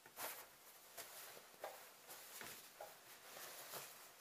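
Faint rustling of hammock fabric being shifted and smoothed by hand under a sewing machine's needle, with a few soft scrapes and taps spread through.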